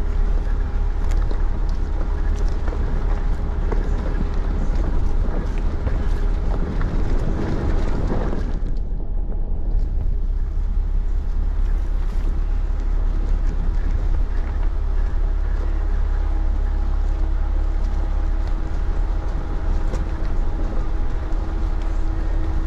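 Jeep Cherokee Trailhawk heard from inside the cab, driving over a rough gravel and rock dirt road: a steady deep rumble of engine and tyres with a constant hum, and scattered clicks and knocks from the rough surface. The higher noise briefly drops away about nine seconds in.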